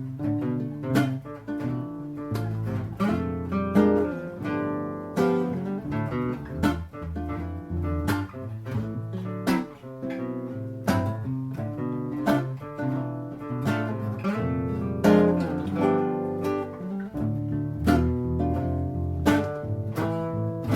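Acoustic guitar playing an instrumental passage: strummed chords struck in a steady rhythm over a low bass line.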